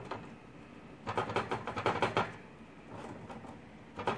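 Antminer S9 bitcoin miner jiggled by hand to check for loose heat sinks: a light clicking rattle as the hashboards shift, in a burst about a second in and again briefly near the end. These are the unit's normal noises, not the rattle of a loose heat sink.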